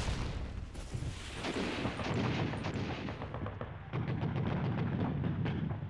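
Battle gunfire: a sharp blast at the start, then a dense run of rapid shots from about two seconds in, over a steady low rumble.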